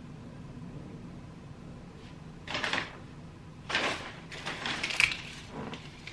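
Paper shopping bag rustling and crinkling in several short bursts as hands rummage through it, the first about two and a half seconds in.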